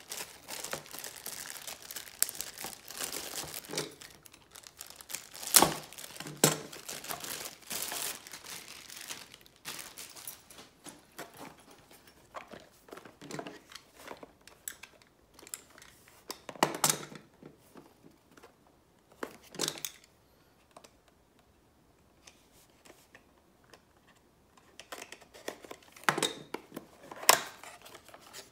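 Clear plastic packaging crinkling and tearing as it is handled and opened, with a few sharp clicks. The crinkling is densest in the first third, thins out, and stops for a few seconds about two-thirds through before more handling.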